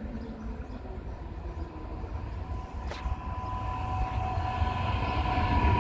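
ICE 3 high-speed electric train approaching on the track, its low rumble and a steady whine of high tones growing louder; a single short click about three seconds in.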